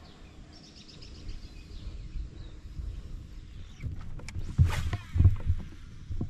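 A fishing cast from a kayak about four and a half seconds in: a sharp rod swish and a baitcasting reel spinning briefly as the line pays out. A low outdoor rumble runs underneath.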